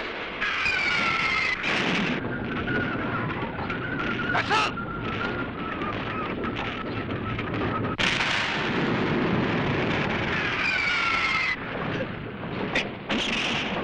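Battle sound effects: a jet fighter's roar mixed with explosions and sharp gunfire-like bangs. A falling whistle sounds near the start and again near the end.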